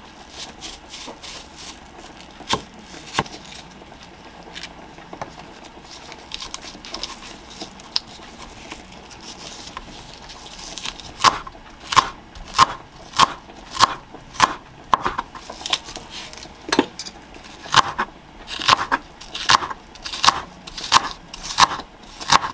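Chef's knife slicing a green onion stalk into thin shreds on a wooden cutting board. It starts with scattered light cuts, then from about eleven seconds in comes a steady run of sharp knife strikes on the board, roughly one and a half a second.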